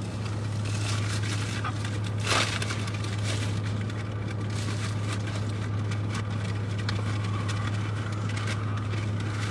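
Steady low hum of a car's cabin with the engine running, with faint rustling and small clicks over it and one sharper click about two seconds in.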